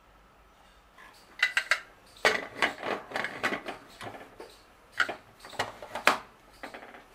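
A kitchen utensil clinking and scraping against a cooking pot. A few knocks come about a second in, then a busier stretch of scraping and knocking, then several separate sharp knocks near the end.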